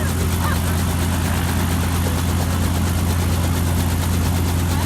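Helicopter running on the ground with its engine and rotors turning, a steady low drone.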